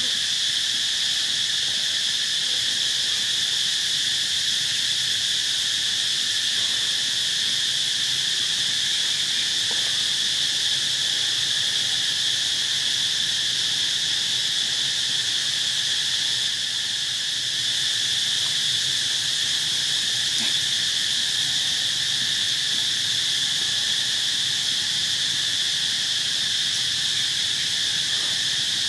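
Steady, high-pitched drone of an insect chorus in tropical forest, unbroken throughout.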